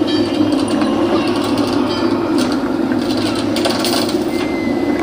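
Pirate-ship sound-effects recording playing through the display's speakers: a steady low rushing rumble with scattered faint creaks and clicks.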